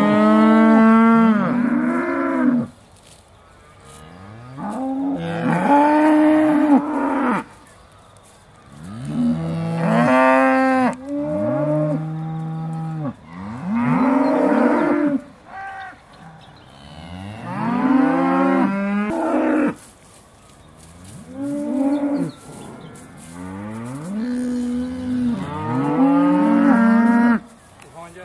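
Several Aussie Red dairy cows mooing: about eight long moos of two to three seconds each, rising then falling in pitch, some overlapping, every few seconds. The herd is waiting to be milked.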